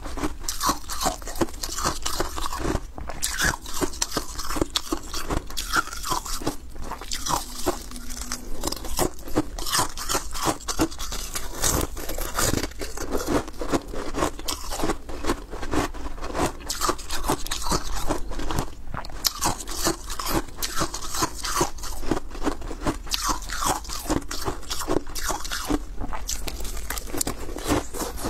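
Thin balloon ice being bitten and chewed: a dense, continuous run of crisp cracking and crunching.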